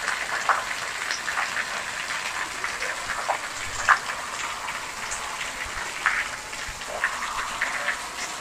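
Heavy rain falling steadily on a wet concrete courtyard, with scattered sharper drips and splashes. One louder splash comes about four seconds in.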